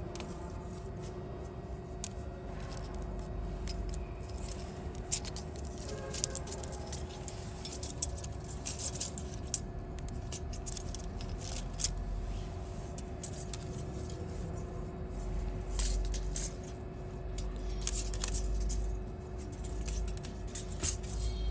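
Thin steel ruler clicking and scraping against the steel screw flights of a conical twin-screw extruder as it is worked into the gaps between the screws to check that the clearance is equal. The clicks come in irregular clusters over a steady hum.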